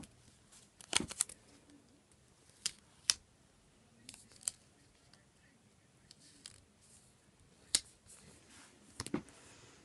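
Faint, scattered small clicks and paper ticks from stickers being peeled off a backing sheet and pressed down by fingertips onto a paper planner page.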